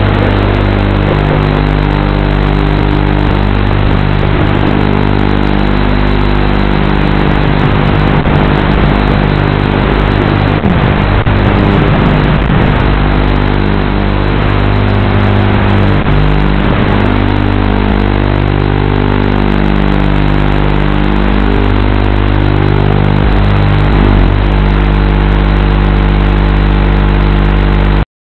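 Racing quadcopter's brushless motors and propellers buzzing steadily, the pitch shifting a little with throttle changes. The sound cuts off abruptly near the end.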